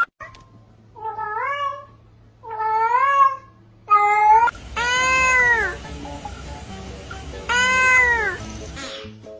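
A cat meowing five times, each call rising and then falling in pitch, the last two longer and louder. Background music comes in about halfway through.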